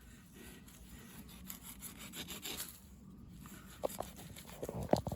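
Wood rubbed against wood, a faint rasping scrape, in an attempt to start a fire by friction, with a few sharp knocks near the end.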